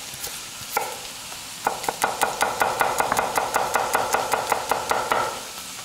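Chef's knife chopping garlic on an end-grain wooden cutting board: a few single cuts, then from about a second and a half in a fast, even run of knocks, about seven a second, that stops near the end.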